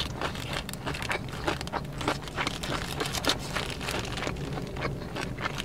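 Close-miked chewing of a mouthful of sushi burrito: many short, irregular mouth clicks and crunches, over a steady low hum from the car.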